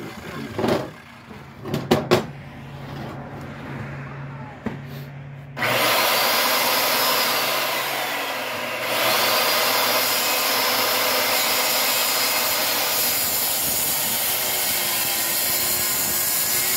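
A few knocks and clicks, then about five and a half seconds in a corded circular saw starts and cuts steadily through a 2x4. It eases briefly about three seconds later, then carries on. The blade is set to 1½ inches deep for shallow notch cuts.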